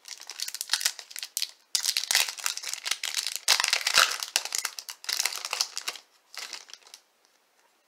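Foil wrapper of a Topps Chrome trading-card pack crinkling and tearing as it is opened by hand. The dense crackling stops about six seconds in, with a few last rustles just before seven.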